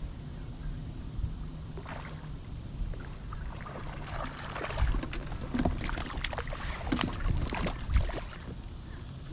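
Kayak moving on the river, a steady low rumble of water and wind. Between about four and eight seconds in comes a run of sharp clicks and knocks, the loudest near the end.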